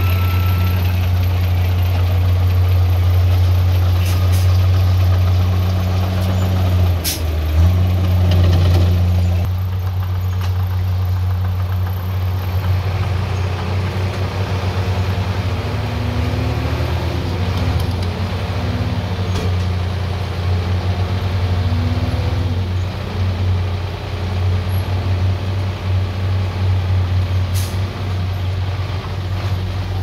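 Heavy diesel engine of earthmoving machinery running with a steady deep drone that turns more uneven partway through, with a single sharp sound about seven seconds in.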